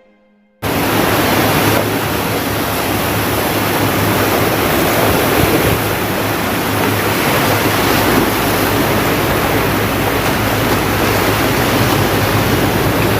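Sea surf and wind making a loud, steady rush that cuts in suddenly about half a second in.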